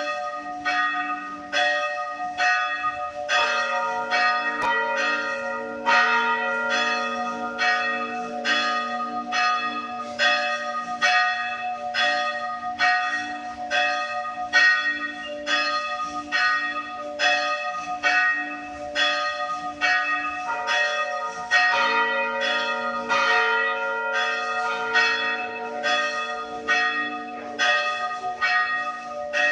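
Church bells ringing for a funeral, struck in a steady rhythm of about two strokes a second. A further bell joins the peal for stretches, about three seconds in and again past the middle.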